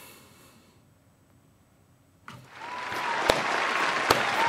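Applause fades in about two seconds in and grows steady. Near the end a few sharp hand claps sound close to the microphone.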